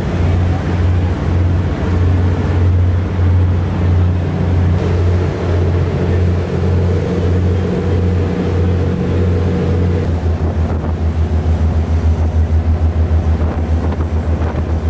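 A small passenger ferry's engine running under way: a low throbbing hum, with wind on the microphone and water rushing past the hull. About ten seconds in, the throb turns quicker, several beats a second.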